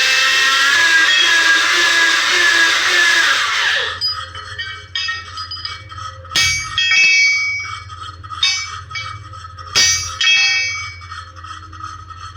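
Hammer blows on a motorcycle crankshaft as it is straightened, each sharp strike leaving a clear metallic ring like a bell. For about the first four seconds a loud, harsh, wavering noise covers everything, then stops abruptly.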